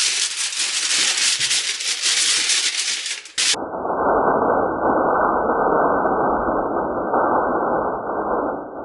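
Homemade Foley sound effects: a crackling hiss for about three and a half seconds that stops abruptly, then a muffled, steady rushing noise.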